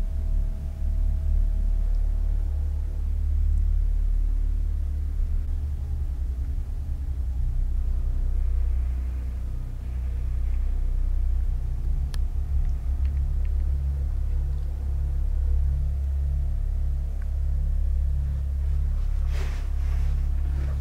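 Deep, steady low rumbling drone of a dark film score, with a slow pulsing bass that alternates between two notes from about halfway on. A brief rustle comes near the end.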